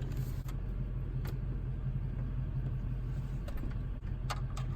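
A vehicle engine idling steadily with a low, even hum, and a few light clicks near the start and again near the end.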